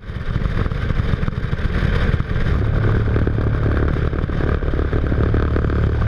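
Car tyre rolling at highway speed onto grooved centreline rumble strips. Steady road and tyre noise turns, about two and a half seconds in, into a loud low drone from the strips: the warning that the car is leaving its lane.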